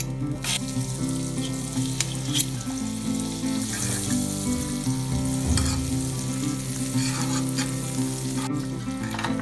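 Butter melting and sizzling in a hot nonstick frying pan, a steady hiss, with a few sharp clicks of a fork against the pan as the butter is pushed around.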